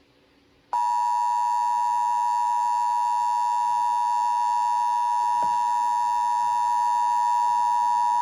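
Emergency Alert System attention signal: a steady, loud electronic tone that starts abruptly about a second in and holds without change. It announces that an alert message is about to be read.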